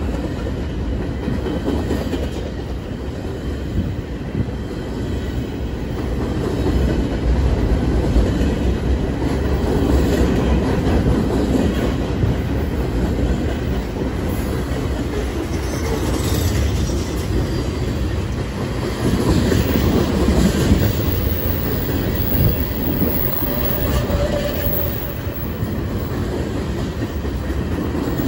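Freight train cars rolling past close by: a steady rumble with wheels clattering over the rail joints, and faint high wheel squeals about halfway through.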